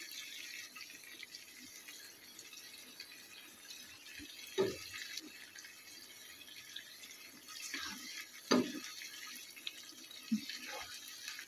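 Faint, steady sizzling of potato slices, tomatoes and herbs cooking in a hot non-stick wok, with a few short, soft knocks and taps as the herbs are scattered in by hand.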